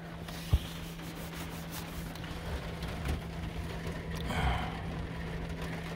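Rain pattering on a van's roof, with a steady low hum underneath and a single sharp thump about half a second in.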